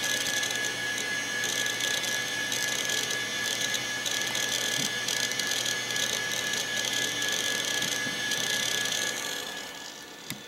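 Quantum Bigfoot CY 5.25-inch hard drive running up close as ScanDisk reads it: a steady high whine with a busy, uneven rasp of head seeking on top. About nine seconds in it drops to a much quieter hum, and a single click follows near the end.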